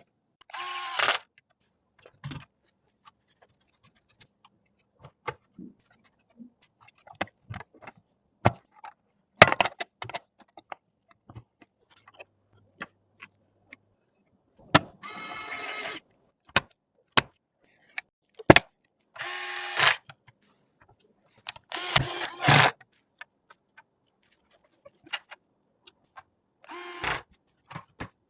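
Computer parts being assembled: scattered sharp clicks and snaps of plastic and metal, with five short whirs of a small motor of about a second each, the two longest near the middle.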